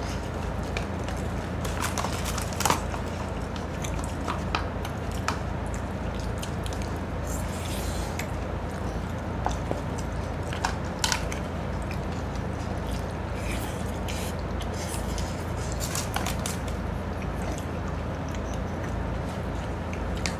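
Close-miked eating sounds: chewing and mouth noises with scattered clicks of chopsticks against plastic and foil food containers, over a steady low hum.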